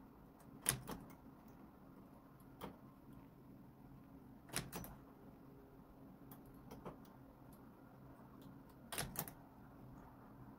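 Metal latch needles on a Brother KR850 knitting-machine ribber bed clicking as they are pushed by hand into and out of working position: scattered sharp clicks, the loudest in close pairs about a second in, near the middle and near the end, over a faint steady hum.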